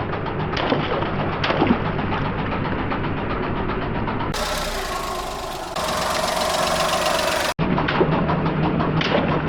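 Car engine running at low speed as the car creeps forward, with a few light crackles in the first couple of seconds.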